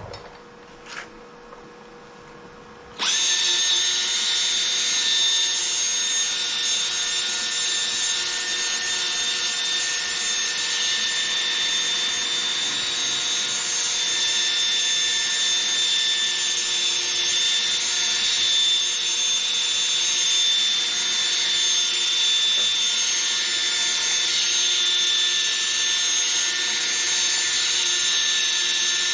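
Cordless drill spinning an abrasive pad against a plastic headlight lens, a steady whine with a scrubbing hiss. It is stopped at first and starts again about three seconds in.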